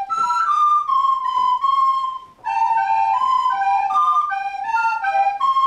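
Plastic recorder playing a simple melody of short stepped notes, at first stepping downward. There is a brief break a little over two seconds in, and after it two notes at times sound together.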